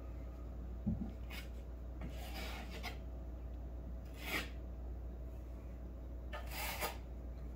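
Snow crunching in about four short, raspy bursts, with a soft thump about a second in.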